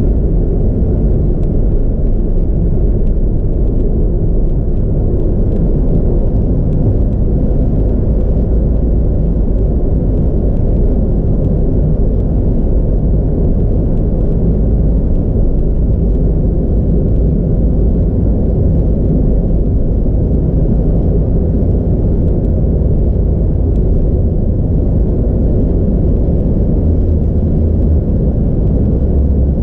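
Steady low rumble of a car's tyres and engine at expressway cruising speed, heard from inside the cabin. The deepest part of the drone swells near the end.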